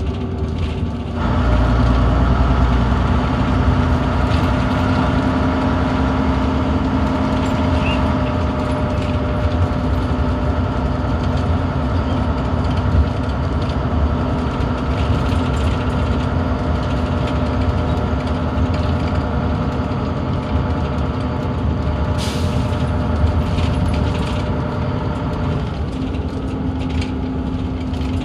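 Leyland Atlantean double-deck bus heard from inside the passenger saloon on the move: the engine picks up about a second in and runs under load, then eases back near the end. A brief hiss of air sounds a little after three quarters of the way through.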